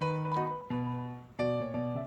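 Background music: a keyboard melody of separate struck notes, several a second, each note fading before the next.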